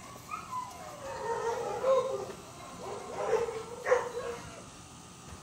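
A dog whining: wavering, sliding whimpers in several stretches, dying away about four and a half seconds in.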